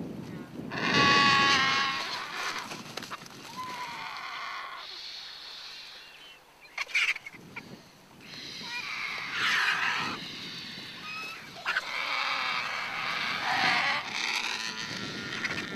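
Vultures squabbling over a carcass, giving harsh, rasping calls in repeated bouts, with a quieter spell midway and a sharp click about seven seconds in.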